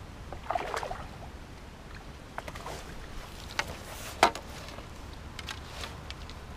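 Clicks and knocks of pole-fishing tackle being handled while a fish is played and netted: the carbon pole and landing-net handle knocking against the seat box, with a scuffle about half a second in and the loudest knock a little after four seconds, over a steady low rumble.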